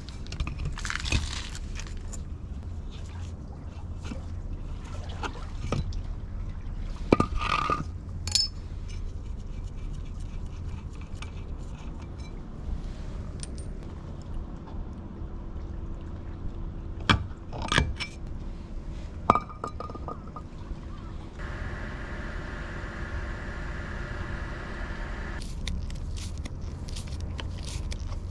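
Metal parts and tools clinking and scraping in scattered, separate strikes, some with a short ringing tail, over a steady low hum. For about four seconds past the middle a steady higher hum joins in, then stops.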